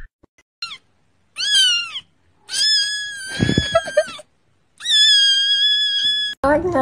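A kitten meowing loudly in four high-pitched cries: a short one, a falling one, then two long drawn-out wails.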